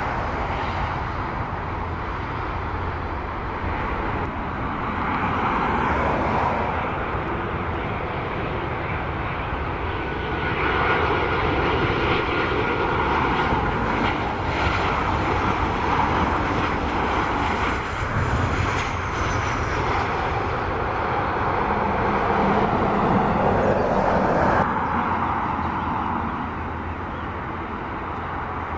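Turbofan engines of jet airliners, Boeing 737s among them, running at approach power as they come in to land. The sound is a steady jet noise that changes abruptly several times as one aircraft gives way to the next, with a faint high fan whine in the middle.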